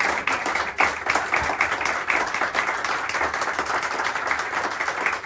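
Applause from a small audience, hand claps going on steadily.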